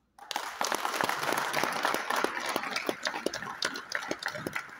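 A hall audience clapping. The clapping breaks out all at once and starts to thin out near the end.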